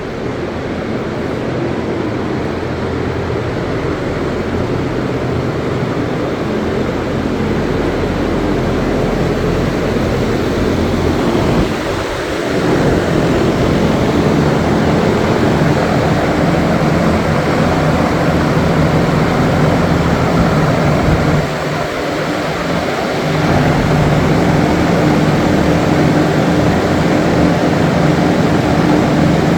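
Big, powerful industrial fans running: a loud, steady rush of blown air with a low hum under it, dipping briefly twice, about twelve and twenty-two seconds in.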